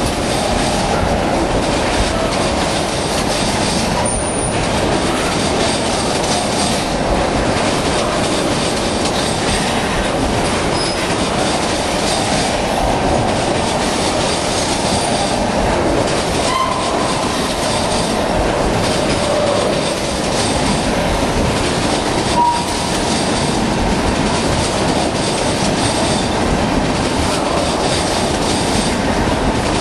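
Freight train tank cars rolling past close by: a steady, loud rumble with the clickety-clack of wheels over rail joints and the crossing diamonds. Short wheel squeals twice in the second half.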